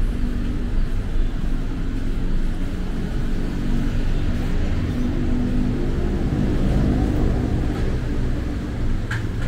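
Motor vehicle engines running close by: a steady low rumble of traffic that swells around six to seven seconds in.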